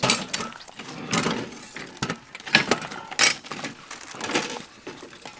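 Hands handling whole raw fish on a woven bamboo tray and pushing lemongrass stalks into them: irregular rustling and scraping, with a few sharper knocks.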